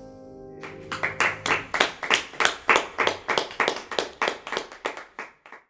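The last grand-piano chord rings out and fades, and then hands start clapping at a quick, even pace of about five claps a second, dying away near the end.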